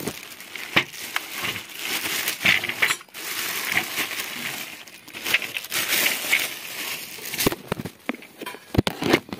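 Plastic bubble-wrap packaging crinkling and rustling as it is handled and pulled off an LED par light, with scattered small clicks and knocks.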